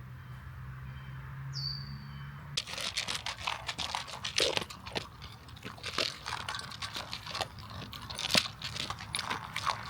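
A low steady hum, then from about two and a half seconds in, a dense run of irregular crunching and crackling clicks.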